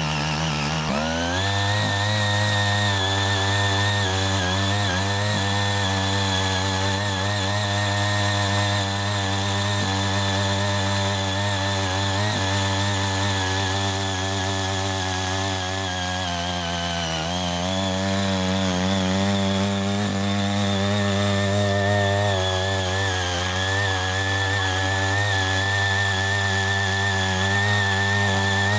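CHING YEE CY80 mini power tiller's small engine running steadily under load as its rotary tines churn weedy soil. The engine revs up about a second in, then sags briefly past the middle and picks back up.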